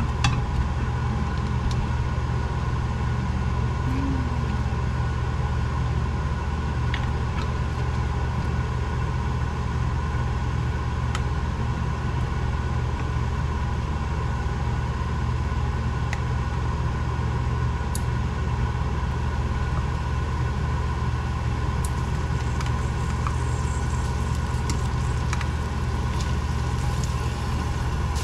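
Kitchen range hood exhaust fan running steadily with a low hum, with a few light clicks of utensils against the pan.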